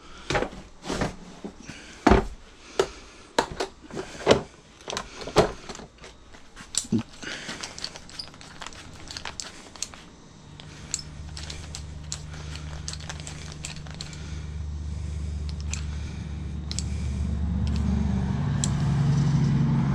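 A 1/2 inch torque wrench ratcheting on the lug nuts, with sharp metal clicks and tool knocks through the first half. From about halfway, a steady low hum comes in and grows louder towards the end.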